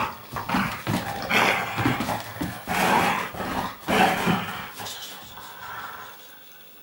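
Dog growling in play while tugging on a rope toy, in several rough bursts over the first four seconds or so, then dying away.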